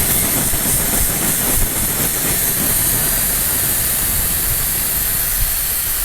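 JisuLife Life 9 handheld jet fan running, a steady rushing hiss of air with an uneven low rumble beneath it.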